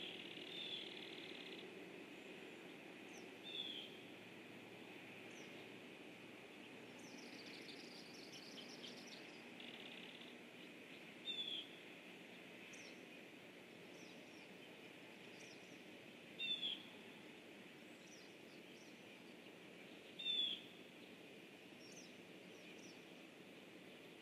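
Faint pond-side ambience with a steady background hiss, and a wild bird giving short, sharp calls every few seconds, the loudest three in the second half. A fainter quick run of high notes comes about seven to nine seconds in.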